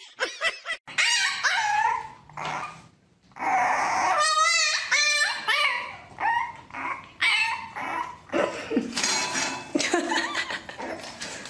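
Dogs whining and yipping: a husky gives drawn-out whines that rise and fall in pitch, then, after a short break about three seconds in, a puppy whines and yips in wavering, repeated calls.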